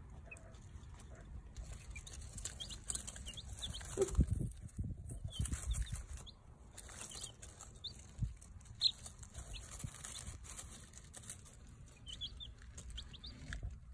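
Young chicks peeping in short, high chirps here and there, over rustling in the wood-shaving bedding, with a couple of dull thumps about four and eight seconds in.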